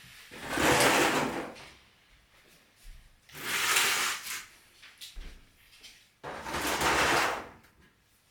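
Three long scraping, sliding strokes, each about a second long and about three seconds apart.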